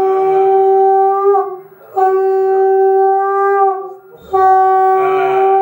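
Conch shell (shankha) blown in three long, steady blasts at one unchanging pitch, with brief breaths between them, as ritual conch blowing.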